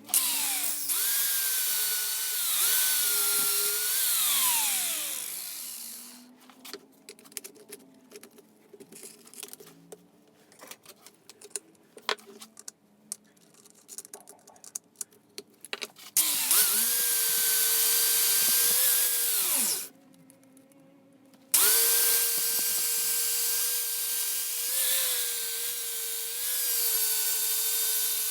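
A high-speed electric power tool runs with a steady whine in three spells. The first winds down about five seconds in, the second cuts off about two-thirds of the way through, and the third starts shortly after and keeps going. Between the first two runs are scattered light clicks and scrapes of handling.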